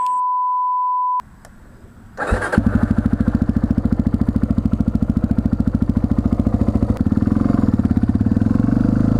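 A steady beep tone lasting about a second, then after a short pause a 1999 Yamaha TTR 250's single-cylinder four-stroke engine comes in and runs with an even, rapid beat, its note changing about seven seconds in as the bike moves off. It keeps running cleanly now that its idle screw is properly set.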